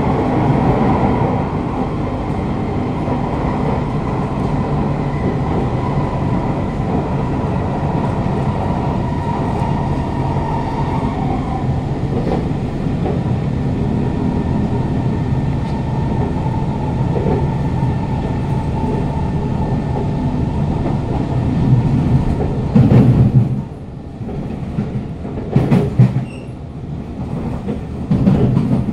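Kawasaki Heavy Industries C151 metro train (GTO-VVVF variant) running at speed, heard from inside a motor car: a steady wheel-and-track rumble under a faint steady motor whine that fades out about twelve seconds in. Near the end come a few short, louder surges of running noise.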